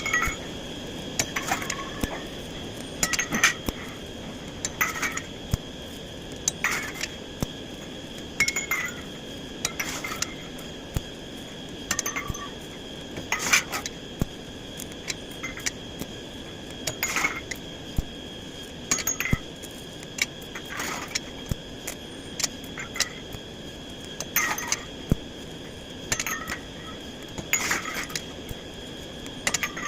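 Steel being struck, clinking sharply about every one to two seconds, with a steady high ringing underneath.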